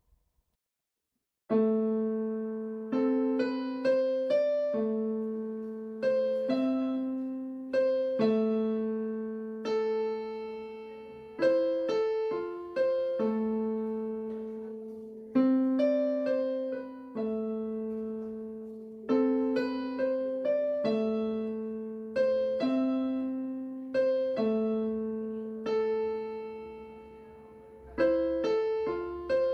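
Slow solo piano background music: single notes and chords struck a second or two apart, each ringing and fading, beginning after a short silence about a second and a half in.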